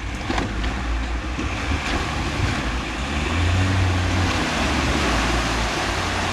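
Four-wheel drive's engine working at low speed as the vehicle climbs over a log, with a few knocks near the start and a steady rushing noise. The engine pulls harder about three seconds in.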